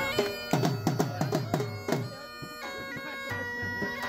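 Music: a reedy wind instrument playing over a steady drone, bagpipe-like, with a quick run of deep drum strokes, each falling in pitch, in the first half.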